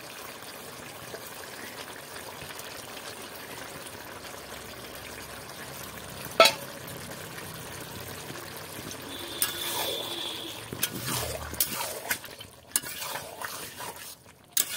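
Thick curry in a metal pot bubbling and sizzling steadily on the heat as its gravy cooks down, with one sharp knock about six seconds in. In the last few seconds a flat spatula stirs and scrapes through it, with irregular clicks and knocks against the pot.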